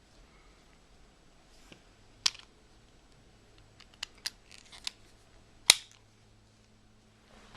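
Several sharp, separate plastic clicks from a small combination cable lock being handled, spaced irregularly, with the loudest click about two-thirds of the way through.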